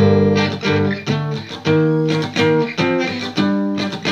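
Yamaha acoustic guitar played with a pick: a run of short, choppy power chords (G5), each struck hard and cut off before the next, in an uneven rhythm counted in three.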